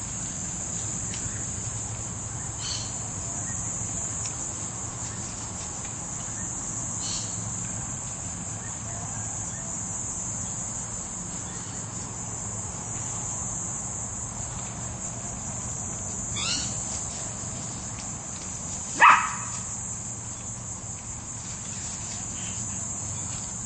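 Steady high-pitched insect drone throughout, with one short, sharp dog bark about 19 seconds in, the loudest sound here.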